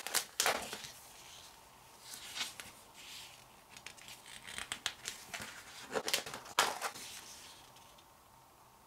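Packaging and printed contents of a boxed DVD set being handled: crinkling and rustling, with sharper swishes just after the start and twice around six seconds in.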